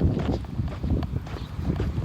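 Strong wind buffeting the microphone: an uneven low rumble that rises and falls in irregular gusts.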